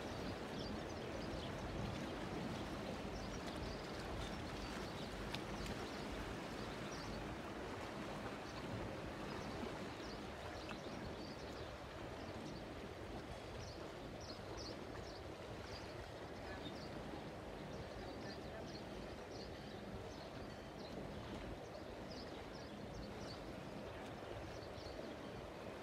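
Low, steady rumble of a coastal cargo ship's engine, slowly fading as the ship moves away upriver, mixed with river water noise and scattered faint high ticks.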